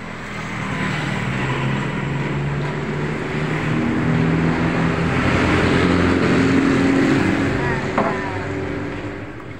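A motor vehicle's engine passing close by, growing louder over about six seconds and then fading away.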